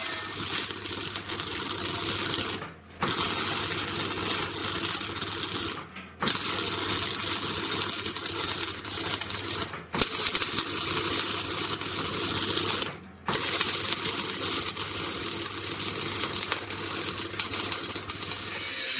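MIG (wire-feed) welding arc crackling and spitting steadily as a bead is laid on sheet steel, with a steady low hum underneath. The arc stops briefly and restarts three times.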